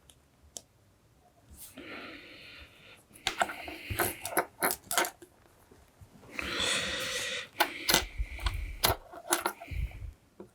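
Small sharp clicks and taps of tools and components being handled while LEDs are soldered onto a kit circuit board, with two hisses of about a second each, near the start and in the middle.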